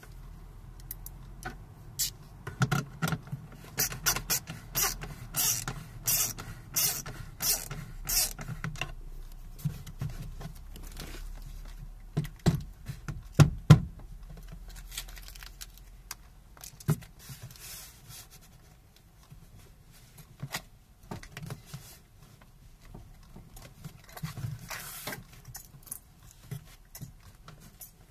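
Plastic door trim panel of a Renault Clio 1 being pressed and knocked into place by hand, its clips seating against the door: a run of quick taps and clicks, the loudest knocks about halfway through, then a few scattered ones.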